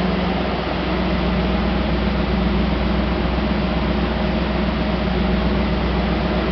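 Chevrolet Camaro IROC-Z's V8 idling steadily, heard at the tailpipes, with no revving.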